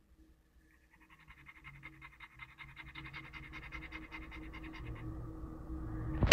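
Labrador retriever panting fast and evenly, the breaths growing louder, over a faint steady hum. A sharp click comes at the very end.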